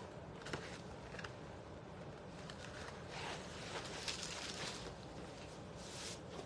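Rustling and a few light clicks as a Goyard tote is handled and slipped into a yellow bag, with the densest rustling in the middle.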